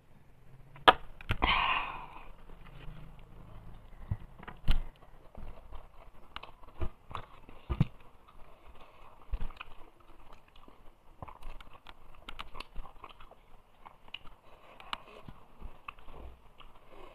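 Eating by hand from a steel plate: scattered small clicks and scrapes of fingers and rings on the metal plate, with chewing. A sharp knock about a second in as a water glass is set down on the table.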